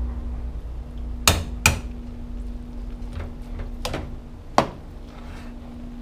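A metal-sounding utensil clanks sharply against a stainless steel stockpot four times while butter is worked into stovetop stuffing. Two knocks come close together a little over a second in, and two more come around four and four and a half seconds. A faint steady hum runs underneath.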